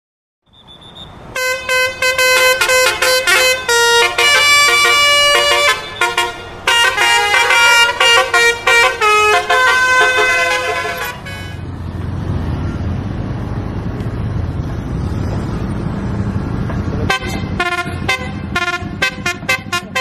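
Basuri 'telolet' multi-tone bus horn playing a quick melody of changing notes for about ten seconds. A low rumble of a bus engine and road noise follows, and near the end the horn sounds again in short, rapid blasts.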